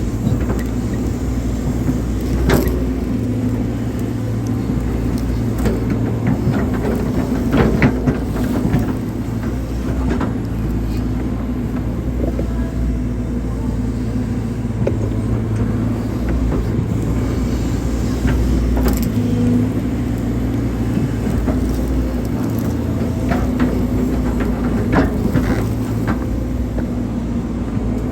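Hydraulic excavator's diesel engine running steadily under working load, with scattered knocks and clunks from the bucket and arm as it digs a drainage ditch.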